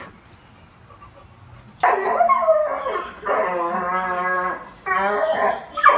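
A dog howling in three drawn-out, wavering calls that start about two seconds in. The first call falls in pitch and the second is the longest.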